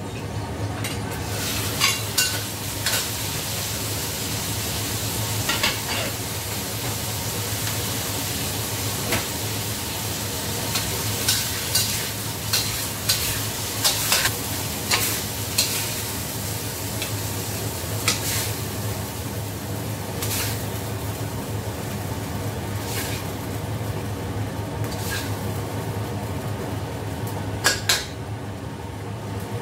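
Asparagus and shrimp stir-frying in a stainless-steel wok: a steady sizzle, with a metal ladle clanking and scraping against the wok many times. The sizzle drops away near the end as the food is tipped out onto a plate.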